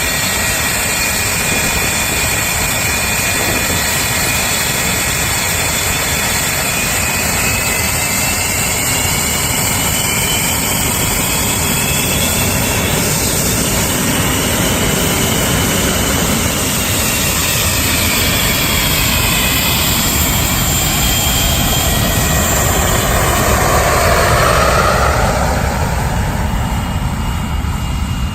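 English Electric Lightning's twin Rolls-Royce Avon turbojets running at taxi power: a loud, steady rumble with high whines that drift up and down in pitch. The sound swells to its loudest a few seconds before the end, then eases slightly.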